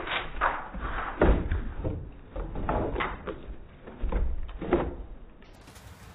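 Siberian huskies scrambling and bumping through a doorway: an irregular run of thumps and knocks that dies away about five seconds in.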